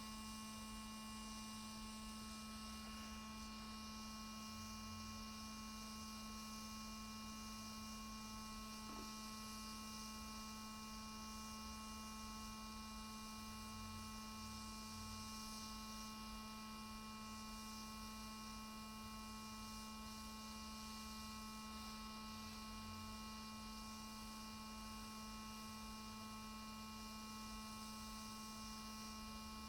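Faint, steady electrical hum with a constant low tone and thin higher whines over a soft hiss, unchanging throughout.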